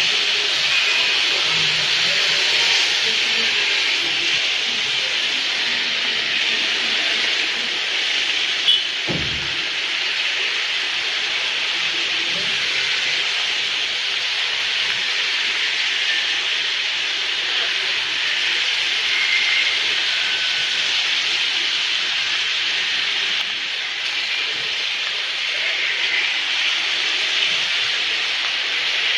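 Rain falling on a wet city street, a steady even hiss, with one brief knock about nine seconds in.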